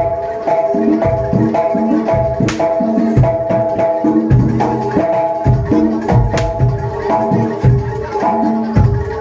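Jaranan dor gamelan music played live: low drum strokes under repeating bright metal gong-chime notes, in a steady, driving rhythm.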